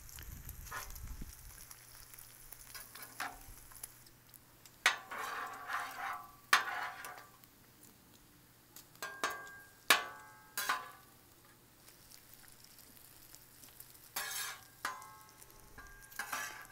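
Bacon sizzling on a Blackstone steel flat-top griddle, while a metal spatula scrapes and clanks against the griddle top several times as the strips are flipped and pushed together.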